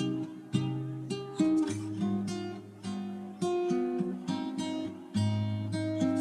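Background music: acoustic guitar strumming chords, with a fresh strum roughly every second.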